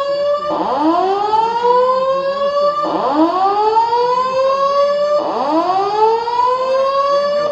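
Notifier fire alarm voice-evacuation system sounding its whoop tone: repeated rising sweeps, each about two and a quarter seconds long, climbing quickly and then levelling off before starting again. It is the building's early alert signal.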